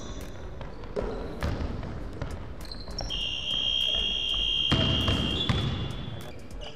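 Basketball bouncing on a hardwood gym floor, a string of thumps, with a steady high-pitched tone held for a couple of seconds in the middle.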